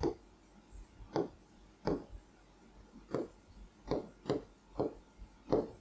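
Pen writing on an interactive whiteboard screen: about nine short scratchy strokes and taps at an irregular pace, one or two a second, as letters are written out.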